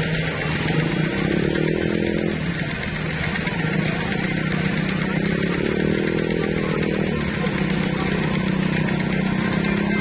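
Tour bus diesel engine running as the bus pulls slowly uphill, with a steady low drone and two short revs, about a second in and again around five seconds in.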